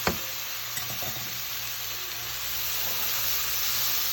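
Lentils, onions, garlic and spices frying in hot oil in a pot: a steady sizzle that grows a little louder about halfway through, with a faint tap of the stirring spoon near the start.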